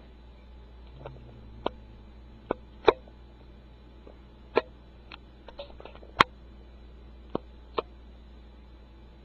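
Irregular sharp taps and knocks, about ten of them, loudest about three and six seconds in.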